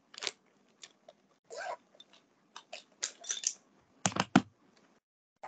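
Irregular small clicks and short rustles close to the microphone, with a cluster of heavier knocks about four seconds in.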